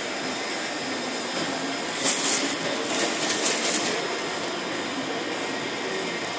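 Vacuum hold-down blower of a Plycutter cutting table running steadily with a rushing sound and a thin high whine, at 70% vacuum with half the table's zone open. Plastic film crackles for a couple of seconds starting about two seconds in as it is drawn down onto the bed.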